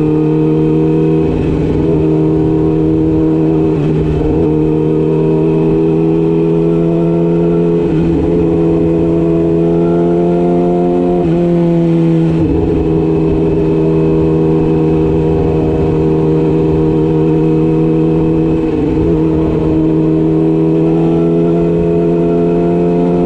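Yamaha YZF-R6's inline-four engine running at a steady, held engine speed, its pitch wavering only slightly.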